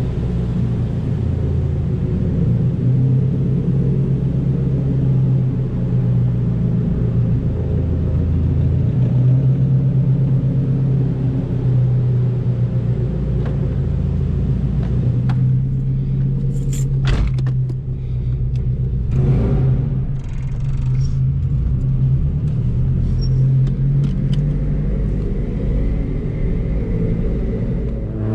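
Straight-piped 2004 Subaru WRX STI's turbocharged 2.5-litre flat-four idling steadily. About halfway through, a few sharp clicks and knocks come from the driver's door being opened as the driver gets in.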